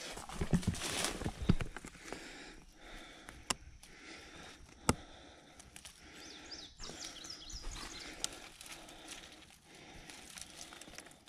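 Rustling and crackling of blackberry brambles and dry grass as a person moves through them and picks berries by hand. Footsteps and handling noise are loudest in the first two seconds, and a few sharp snaps or clicks come through, one about five seconds in. A short run of high chirps comes in after six seconds.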